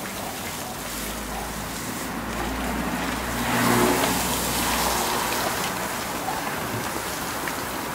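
Water poured from a watering can onto a hot iron tyre on a wooden cart wheel, hissing and sizzling as it boils off in steam, swelling to its loudest near the middle. The quench cools and shrinks the iron tyre tight onto the wooden rim.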